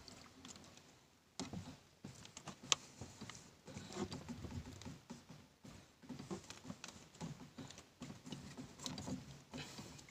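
Nylon fishing line being handled and worked free of a tangle by hand: faint, irregular rustling with light clicks and taps, one sharper click about three seconds in.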